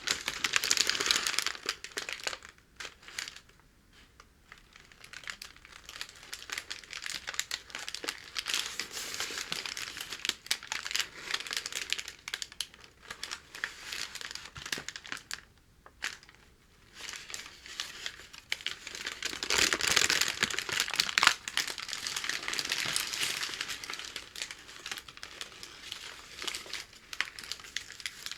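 Packing paper crinkling and crackling as it is handled, torn and folded by hand, in dense scratchy runs with two short lulls and a louder stretch past the middle.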